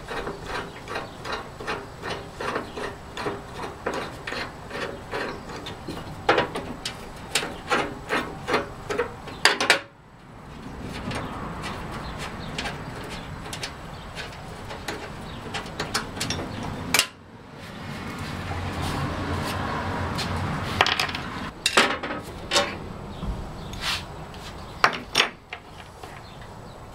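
Cast-iron crank flange being worked off a table saw's handwheel shaft. First comes a run of quick metal clicks, about two a second, for some ten seconds. Then a long scraping rub as the flange is twisted along the rusty shaft, and a few sharp knocks near the end.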